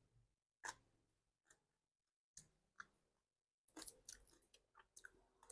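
Faint chewing of green papaya salad: a scatter of soft crunches and mouth clicks, busiest in the second half.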